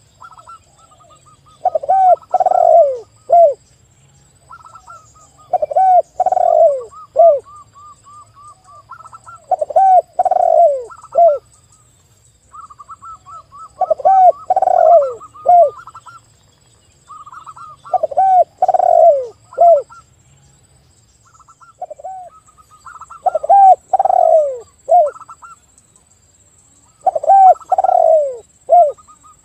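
A spotted dove and a zebra dove cooing. Loud phrases of three or four short falling coos repeat about every four seconds, with quicker runs of higher, short notes in between.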